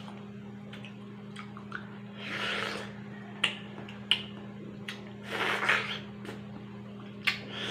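Wet slurping and chewing as ripe orange-fleshed melon is bitten and sucked off the rind, in two bursts about two and five and a half seconds in, with a few sharp mouth clicks between them. A steady low hum runs underneath.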